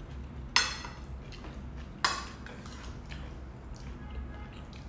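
Metal cutlery clinking against ceramic plates: two sharp clinks with a short ring, about half a second in and again about two seconds in, with a few softer taps between.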